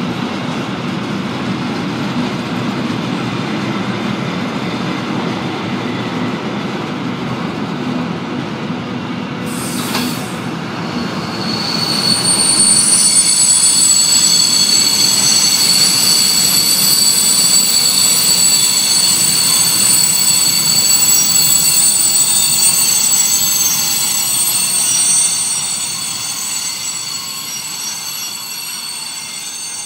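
Freight train of high-sided open wagons rolling past, wheels rumbling on the rails. Near the middle a loud, steady, high-pitched wheel squeal sets in, holds for over ten seconds, then fades as the last wagon goes by.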